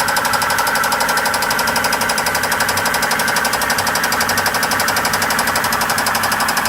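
Volvo Penta 5.0 marine V8 running steadily with a loud, rapid, even knocking: rod knock from a blown engine.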